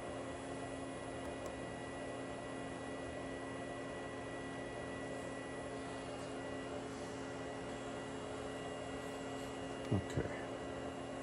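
Steady electrical hum of a workshop with several fixed tones. Near the end come two soft low thumps about a quarter second apart.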